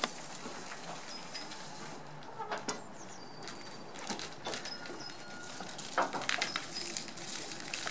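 Scattered light taps and rustles on a wooden pontoon deck as a puppy drags a long plastic strip across it, with a few short high chirps.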